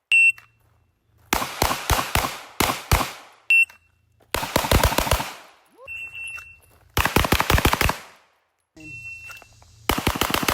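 Shot-timer beep followed by a fast string of about six pistol shots, repeated four times: a Bill Drill of six rapid shots from the draw on each start signal.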